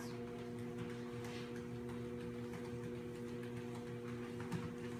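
Electric treadmill running with a steady hum from its motor and belt while a dog walks on it, with a few faint irregular taps.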